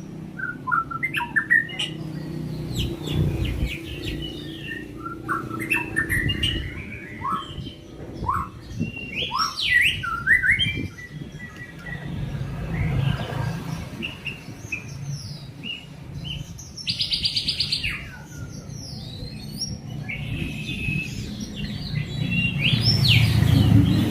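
A songbird singing a varied song of quick chirps and whistled notes that slide up and down in pitch, with a short rapid trill about seventeen seconds in. In songbird-keeping terms these are its 'tembakan', its song bursts. A low rumble sits underneath and swells near the end.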